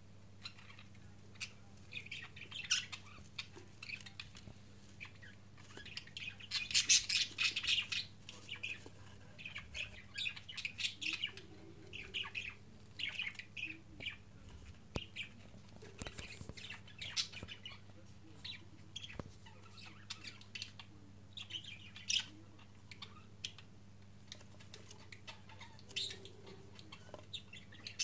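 Budgerigars chirping in many short, high calls scattered throughout, busiest about six to eight seconds in, over a faint steady low hum.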